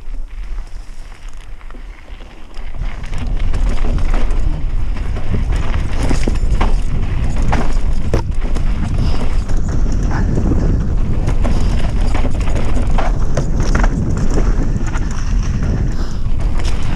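Mountain bike descending a rough enduro trail at speed: from about two and a half seconds in, wind buffets the microphone in a steady low rumble, with a constant stream of knocks and rattles from the bike over the rough ground.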